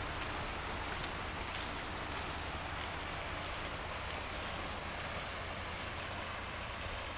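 Water jets of an illuminated fountain shooting up and splashing back into the pool, a steady rushing patter, with a constant low rumble underneath.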